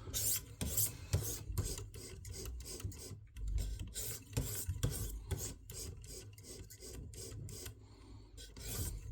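600-grit stone of a KME guided knife sharpener rasping along the edge of a flexible fillet knife in quick repeated strokes, about three a second. These are light into-the-edge deburring strokes that knock off the burr after sharpening.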